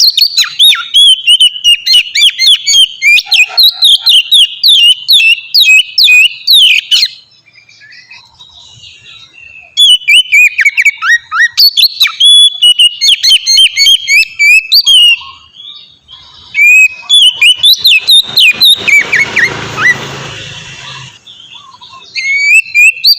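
Oriental magpie-robin singing: rapid, varied, sliding whistled phrases in three loud bouts with short pauses between them. A brief rushing noise sounds under the song about two-thirds of the way through.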